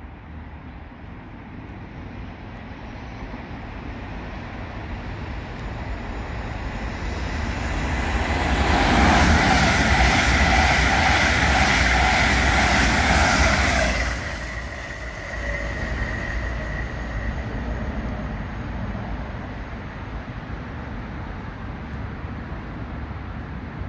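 GWR Class 800 Intercity Express train passing at speed on the main line: its sound builds steadily as it approaches, is loudest for about five seconds as it passes with a high whine over rushing rail noise, then drops off suddenly once it has gone by.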